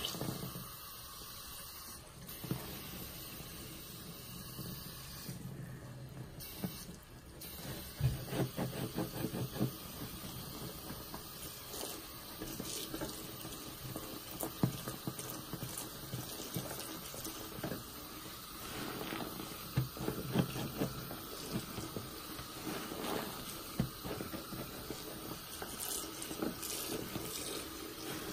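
Tap water running steadily into a sink full of soapy lather, while a large porous sponge is squeezed and plunged in the suds, giving repeated wet squishes that grow frequent from about eight seconds in.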